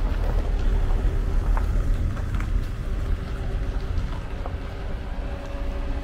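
Wind buffeting the microphone, a low uneven rumble, with a steady mechanical hum underneath that grows plainer in the second half.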